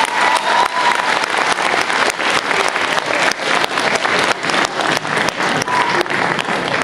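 Theatre audience applauding as the music ends, the clapping pulsing at a fairly regular pace.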